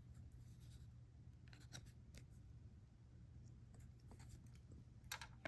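Faint rubbing and light ticks of trading cards being slid and handled, with a sharper tick near the end, over a low steady hum.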